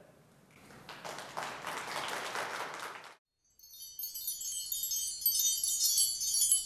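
Audience applause that cuts off suddenly about three seconds in. After a short gap, a bright high tinkling chime shimmer, the opening of a jingle, starts and is louder than the applause.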